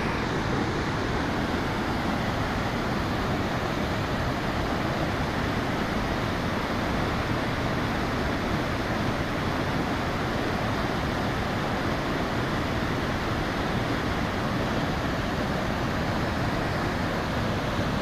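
Mountain stream rushing and splashing down a rocky cascade, a steady rush of white water.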